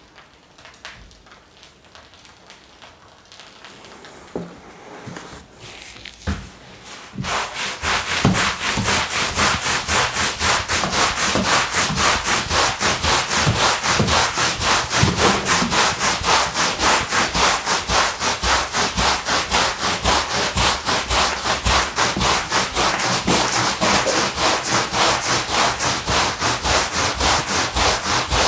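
Rubber squeegee on a long pole drawn across a wet, soapy rug, scraping foam and dirty water out of the pile with a fast, even rhythm. It starts about seven seconds in, after a quieter stretch.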